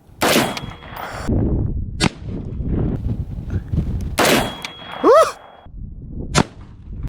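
Four gunshots about two seconds apart, each sharp crack followed by a short ringing echo and a metallic ring.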